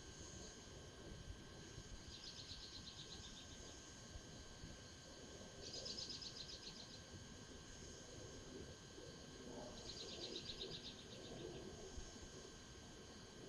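A small bird sings a fast pulsed trill three times, about four seconds apart, each trill lasting a little over a second. Steady high-pitched tones and a faint low rumble run beneath.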